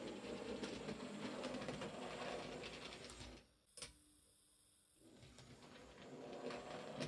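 00 gauge model Peckett W4 tank engine running: its small motor and gears whirr and its wheels rattle over the track while it shunts a wagon. The running stops about three seconds in, there is a single click, and it starts again about five seconds in.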